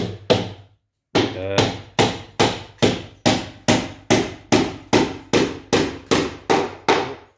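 Hammer blows. Two quick strikes, then after a short pause a steady run of about fifteen strikes at roughly two and a half a second, each with a short ring.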